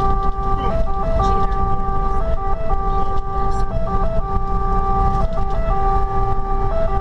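Fire engine's two-tone siren switching back and forth between two pitches, heard from inside the cab, with the truck's engine running beneath it.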